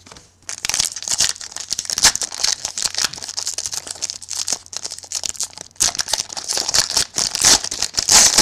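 Wrapper of a 2011 Playoff Contenders football card pack being crinkled and torn open by hand: a dense, rapid crackle that starts about half a second in and keeps going.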